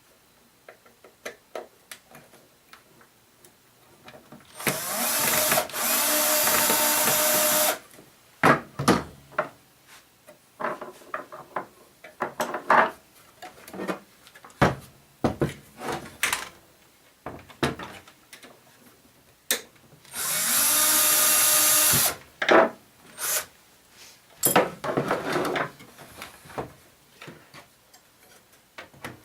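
Cordless electric screwdriver running in three bursts of one to three seconds, backing out screws. Clicks and knocks of handling fill the gaps between runs.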